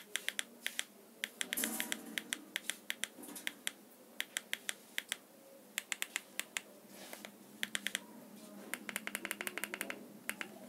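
Remote-control buttons pressed over and over to scroll through a TV channel list. Sharp little clicks come in quick runs, with a fast run of about ten near the end.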